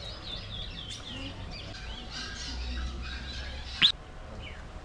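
Aviary birds chirping in quick repeated high notes, then one loud, sharp rising call a little under four seconds in.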